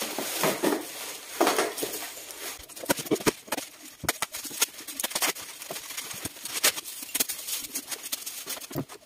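Bubble wrap and cardboard crinkling and rustling as a wrapped saxophone case is pulled from its box and the plastic is slit with a knife, with irregular sharp crackles and scrapes.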